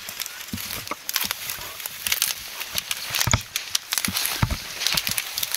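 Footsteps pushing through snow-covered brush and fallen branches: irregular crunches, with twigs snapping and scraping.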